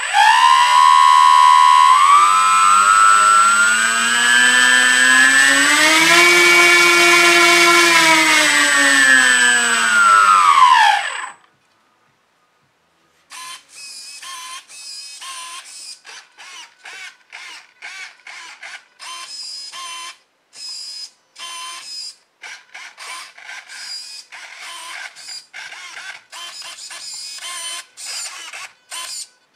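Electric sailplane's motor and folding propeller run up on the transmitter throttle with a high steady whine, rising in pitch, holding, then winding down and stopping about eleven seconds in. After a short pause comes a long series of short buzzes from the servos as the control surfaces are worked from the transmitter in an equipment check.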